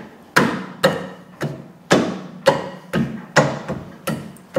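Palm slaps on a cast-iron rear brake drum, about nine sharp strikes at roughly two a second, each ringing briefly. He is knocking the drum over the brake shoes, which have spread slightly and make it a tight fit.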